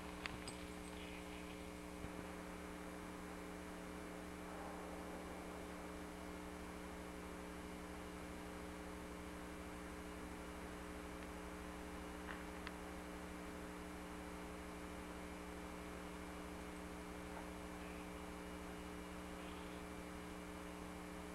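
Steady electrical mains hum over hiss on the recording's audio track, with a few faint clicks.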